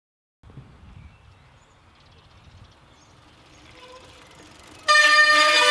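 Bicycle disc brake squealing: faint rolling noise with a light tonal whine building, then a loud, high-pitched squeal sets in near the end as the brake bites.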